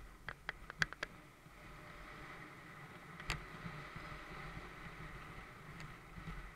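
Mountain bike riding fast down dirt singletrack: steady tyre rumble and wind on the microphone, with a quick run of sharp clacks and rattles from the bike over bumps in the first second and one sharp knock about three seconds in.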